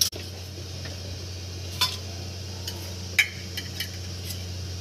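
A few light clinks of metal kitchenware, a spoon and steel bowl handled while turmeric is put into washed dal. The loudest comes about three seconds in, over a steady low hum.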